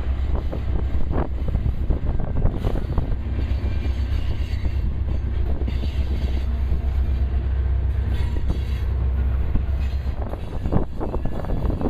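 Union Pacific freight train rolling past, its cars clattering and clicking along the track, over a heavy low rumble of wind on the microphone.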